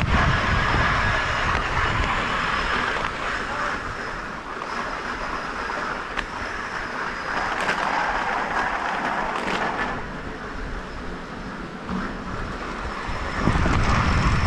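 Zipline trolley running fast along the cable, a steady rushing whir, with wind rumbling on the microphone that grows stronger near the end.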